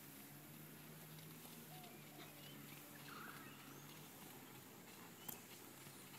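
Near silence, with faint bird chirps, a low hum that fades out about four seconds in, and one sharp click near the end.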